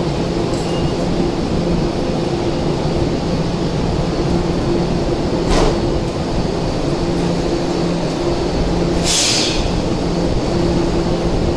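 Tokyo Metro 1000 series subway train standing at the platform with its doors open, its equipment humming steadily with a pitched tone that comes and goes. A single click comes about halfway through, and a short hiss of released air about nine seconds in.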